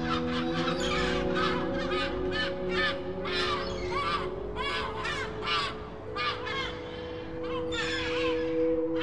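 Many bird calls overlapping, several a second, over background music with long held chords.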